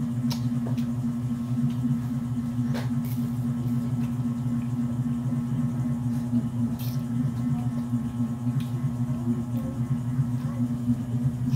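A steady low hum, with a few faint clicks and smacks from eating crab by hand.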